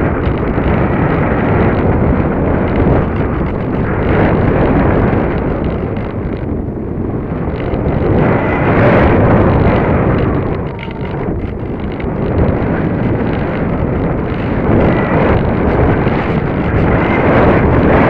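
Airflow rushing over the onboard camera's microphone on a Bixler v1.1 RC foam plane in flight, loud and swelling and easing as the plane climbs and dives.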